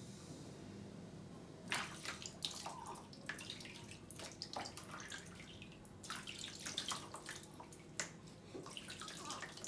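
Water splashing and trickling in a small plastic baby bathtub as a newborn is washed by hand: faint, short, irregular splashes, starting about two seconds in.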